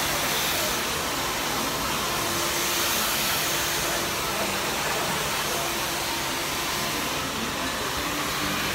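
Handheld hair dryer blowing steadily during a round-brush blow-dry.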